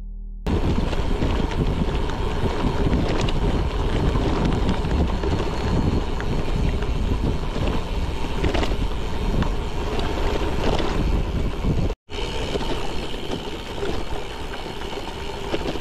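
Wind buffeting the microphone and tyre noise from a gravel bike rolling along a gravel track, with scattered small clicks and rattles, broken by a brief cut about twelve seconds in.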